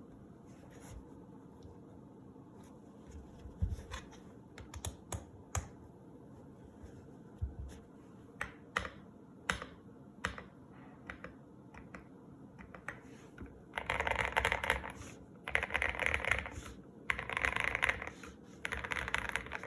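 Custom GMK67 mechanical keyboard with lubed KTT Kang White switches, dampened by a tape mod on the PCB and cotton: single keystrokes at first, scattered and a few at a time. About two-thirds of the way in it changes to four short bursts of rapid typing, each about a second long, which are the loudest part.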